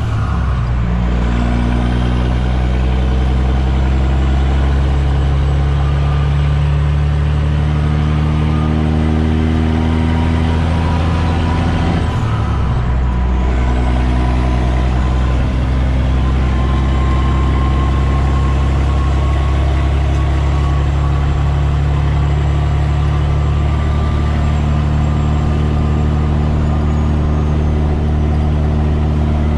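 Caterpillar C-15 diesel of a loaded Kenworth T800 end-dump truck pulling on the highway, heard from inside the cab: a steady engine drone that drops out briefly twice, near the start and about twelve seconds in, as the driver shifts gears. A faint whine rises slowly through the second half.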